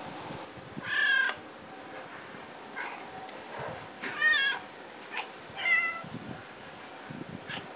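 Domestic cats meowing to be fed: three loud, drawn-out meows, about a second in, around four seconds in and near six seconds, with a few shorter, fainter mews in between.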